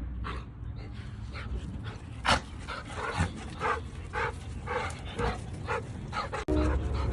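A dog barking: one loud bark a little over two seconds in, then a steady run of about two barks a second, over a constant low rumble.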